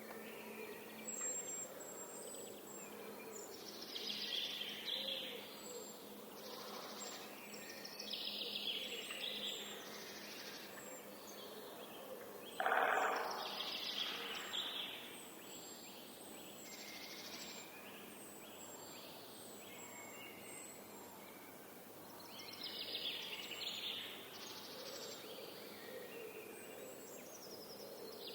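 Forest birds singing and calling in several overlapping phrases, with thin, high repeated calls above them. About halfway through comes a short, loud burst, the loudest thing here, lower than the birdsong.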